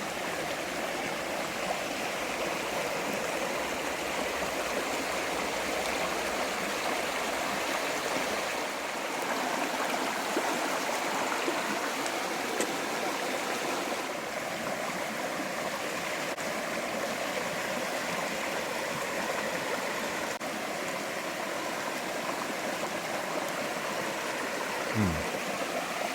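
A creek's water running steadily over rocks, with a faint click or two and a short low knock near the end.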